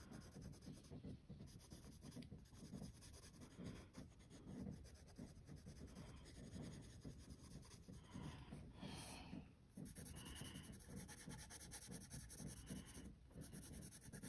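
Faint scratching of a graphite pencil with a worn, rounded lead shading on sketchbook paper in many short strokes.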